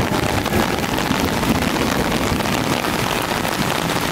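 Heavy rain pouring onto a wet street, a steady hiss, with the low rumble of traffic driving through it.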